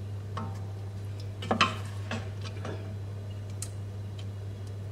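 Wooden spatula stirring thick tomato sauce in a stainless steel pot, tapping and scraping against the pot's side and bottom in a few scattered knocks, the loudest a quick double tap about a second and a half in, over a steady low hum.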